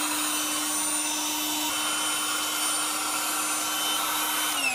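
Electric air pump running steadily, blowing air into a twin air mattress with an even whirring hum and rush of air. Right at the end it is switched off and its pitch starts to fall as the motor spins down.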